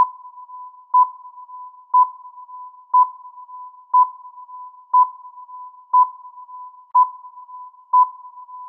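Electronic countdown-timer beep sounding once a second, each a short high beep, over a fainter steady tone of the same pitch.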